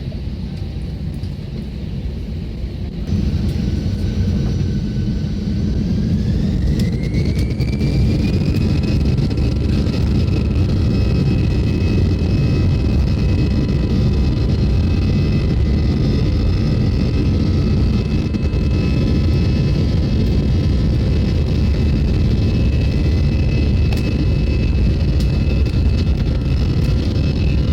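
Airbus A320's jet engines spooling up to takeoff thrust, heard from inside the cabin: the rumble jumps up about three seconds in, a whine rises in pitch over the next few seconds, then engine noise and whine hold steady and loud.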